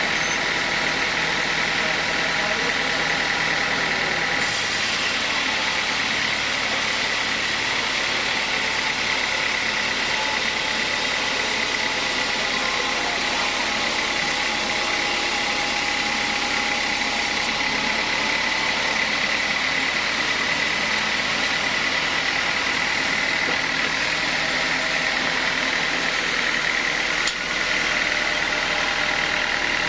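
Sawmill saw running steadily, a continuous mechanical drone with a high whine over it. There is a single brief click near the end.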